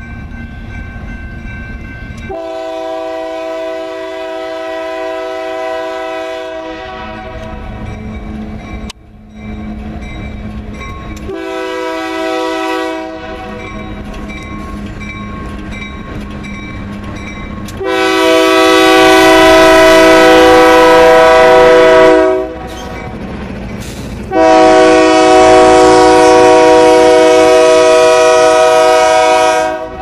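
Union Pacific diesel freight locomotive sounding its multi-note air horn in four blasts (long, short, long, long), the last two the loudest, as it approaches and passes. Underneath runs the steady rumble of the locomotive and its rolling freight cars.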